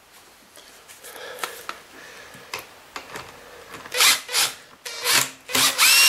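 Cordless power driver run in four short bursts, backing Phillips screws out of a vacuum cleaner's housing. The last burst has a motor whine that rises and falls as the driver spins up and stops. Quieter handling noise comes before the bursts.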